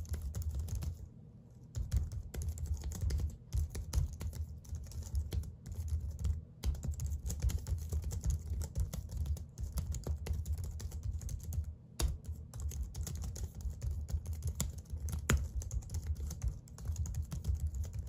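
Logitech MX Keys wireless keyboard being typed on: a rapid, continuous patter of soft clicks from its low-travel chiclet keys, with a short pause about a second in.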